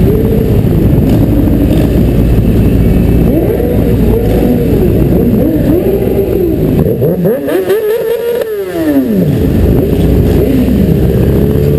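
Motorcycles riding slowly in a group, their engines running with a steady low rumble. Throttles are opened and closed over and over, so the engine note rises and falls every couple of seconds. One long rev rises and falls from about seven to nine and a half seconds in.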